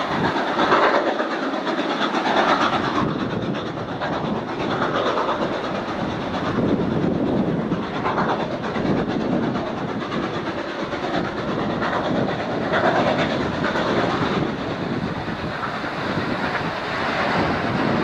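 Ex-Queensland Railways steam locomotive 218A working its train across the valley: a steady, distant train noise that swells and fades every second or two.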